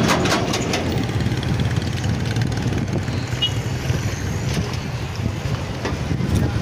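Road traffic: a steady low rumble of truck and car engines passing on a busy street.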